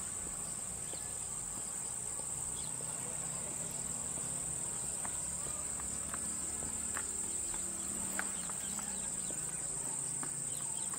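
Steady, high-pitched insect chorus, unbroken throughout, over a faint low rumble.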